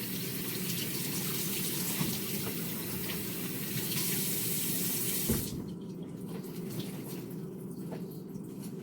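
Kitchen sink tap running as lettuce is rinsed under it. The water shuts off a little after five seconds in with a short knock, leaving faint ticks of handling.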